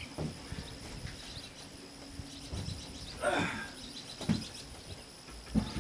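A plywood panel knocking and scraping against a wooden bulkhead frame inside a fiberglass boat hull as it is set in for a trial fit: a few separate knocks and a longer scrape about three seconds in. Insects trill steadily at a high pitch behind it.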